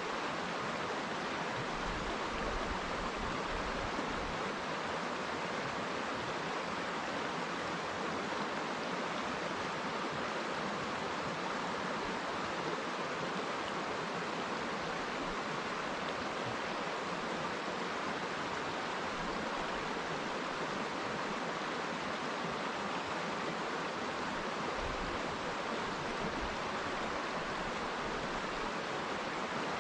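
River water flowing and rushing steadily, an even wash of water noise without breaks.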